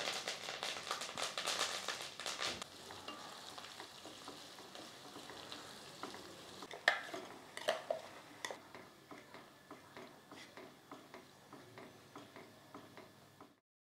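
Curry leaves sizzling and crackling in hot oil in a pan, then a wooden spatula stirring frying shallots and garlic, with a few sharp knocks of the spatula against the pan about seven to eight seconds in.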